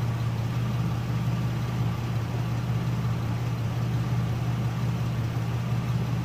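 Chevrolet Uplander's V6 engine idling with a steady, even hum, minutes after an oil additive was put in; the owners hear the valve train as quieter and the idle as smoother.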